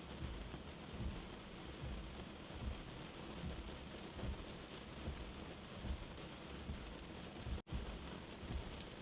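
Steady rain falling, an even hiss with a low, uneven rumble underneath. The sound cuts out for a split second about three-quarters of the way through, then carries on.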